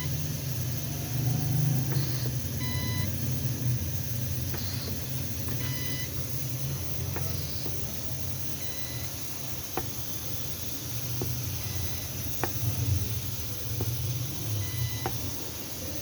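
Olympus UHI-3 insufflator running under test, giving short electronic beeps every second or two. Sharp clicks come now and then over a steady low hum.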